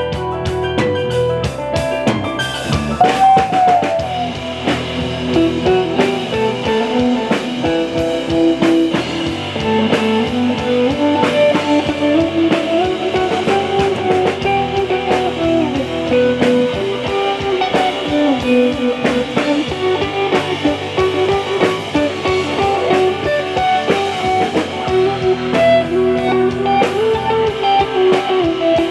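Music: a blues-rock style piece with electric guitar and a drum kit, playing steadily.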